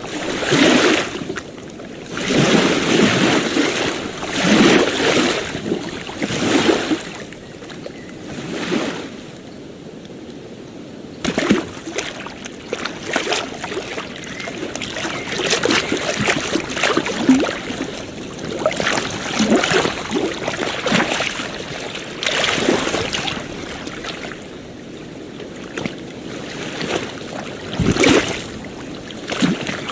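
Ocean waves washing and splashing in irregular surges every second or few, with a quieter lull about a third of the way through.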